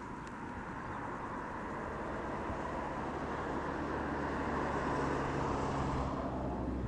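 Engine of a passing vehicle, its hum building over a few seconds and then fading near the end, over steady outdoor background noise.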